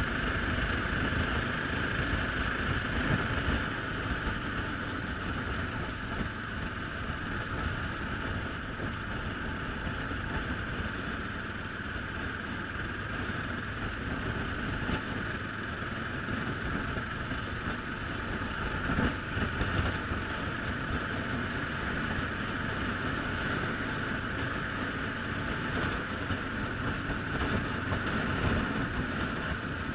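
Motorcycle on the move at a steady pace: the engine running under steady wind rush and road noise on the camera's microphone.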